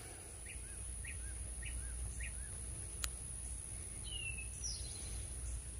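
Birds calling: a short chirp repeated four times, about every half second, then a falling whistled note about four seconds in. Under it runs a low steady rumble.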